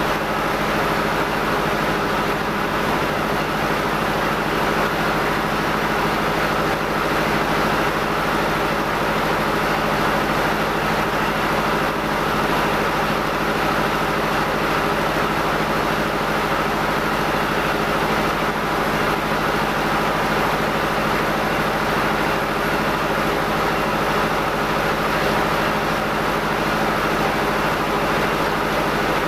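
Rice mill machinery, an N50 husker and a rice polisher, running steadily: a constant loud mechanical din with an even low hum and a dense rushing noise that does not change.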